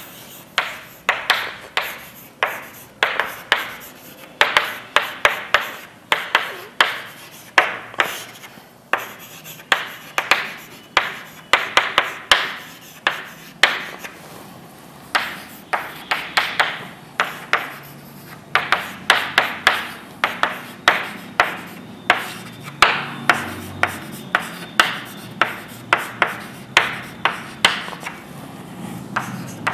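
Handwriting: quick clusters of short scratching strokes as questions are written out, with brief pauses between groups of strokes.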